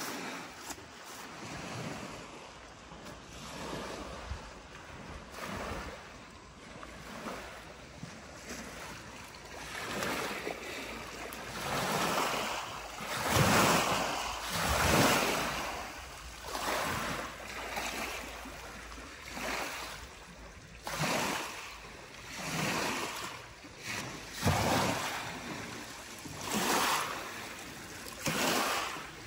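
Small lake waves washing onto a pebble shore in repeating swells every second or two, loudest about halfway through.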